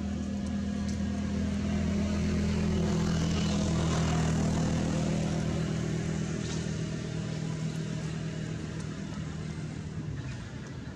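A motor vehicle's engine running as it passes: a steady hum grows louder to about four seconds in, then slowly fades while its pitch drops a little.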